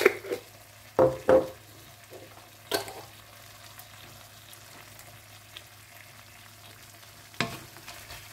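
Wooden spatula stirring a wok of pork belly and bamboo shoots frying in red curry paste. There are a few sharp knocks and scrapes against the pan in the first three seconds and again near the end, with faint sizzling between.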